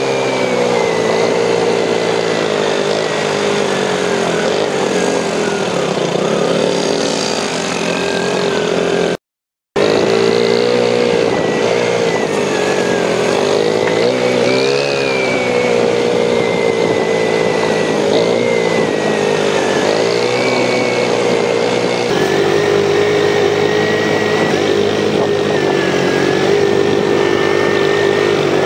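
ATV engine running under way, its pitch rising and falling as the throttle is worked. The sound cuts out completely for a moment a little past nine seconds.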